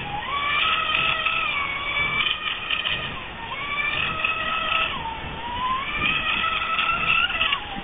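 Kukorelli Merlin Eco radio-controlled model boat's motor whining at high speed as it circles on the water, its pitch dipping and climbing back three or four times.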